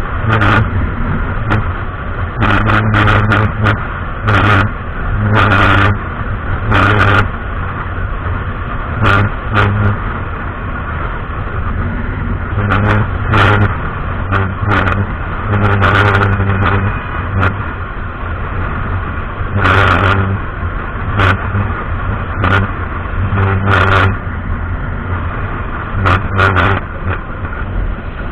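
Two-wheeler riding at cruising speed on an expressway: steady engine and road noise, broken every second or two by irregular gusts of wind buffeting the microphone.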